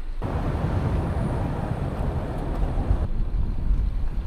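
Car driving: a steady low road rumble, with a hiss over it for about the first three seconds.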